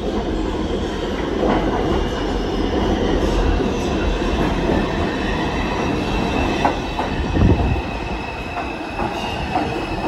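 New York City subway train moving through the station, its wheels squealing in a steady high whine over a low rumble, with scattered clacks over the rail joints and a heavier knock about seven and a half seconds in.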